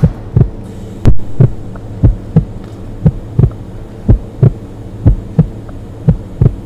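Heartbeat sound effect: a low double thump about once a second, repeating steadily over a constant low hum.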